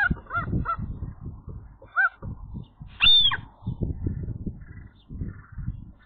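Common gull calling in alarm at a magpie pulling at its tail: a quick run of short rising-and-falling calls at the start, one more about two seconds in, and a higher, longer call about three seconds in. Low thumps and rustles sound throughout.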